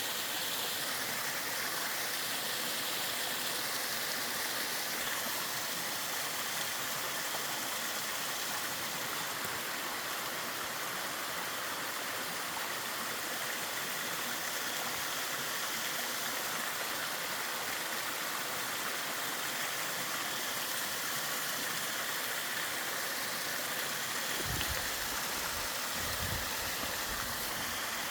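Mountain stream water rushing steadily over rocks, an even, unbroken noise. A few low thuds come near the end.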